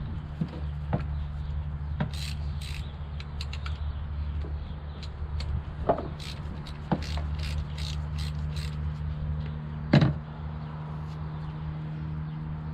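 A ratchet wrench clicking in short runs while the 10 mm bolts on the engine's camshaft timing solenoids are loosened. Scattered tool clicks and one sharp metal knock about ten seconds in sound over a steady low hum.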